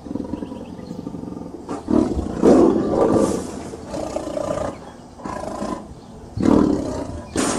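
Tiger roaring and growling in a series of about six calls, starting about two seconds in; the longest runs about a second.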